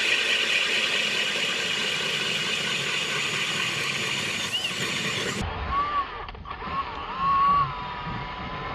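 Cordless drill spinning a red ice auger, boring a hole through lake ice: a loud, steady motor whine with grinding. About five seconds in the sound changes to a thinner whine that wavers up and down in pitch, then holds steady.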